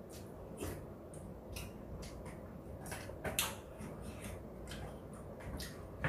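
Eating sounds: chewing and lip smacks, with chopsticks clicking against plastic food containers, heard as a string of short sharp clicks, the loudest about three and a half seconds in.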